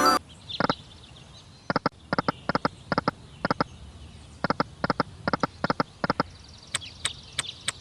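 Online slot game sound effects: a long run of short, pitched knocks coming in quick clusters of two or three.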